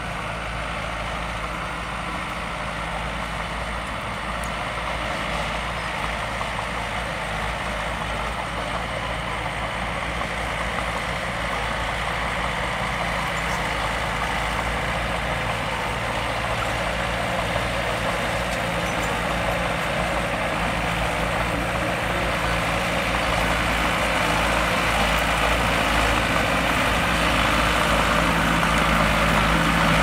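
Heavy diesel engine of earthmoving machinery running steadily, getting gradually louder.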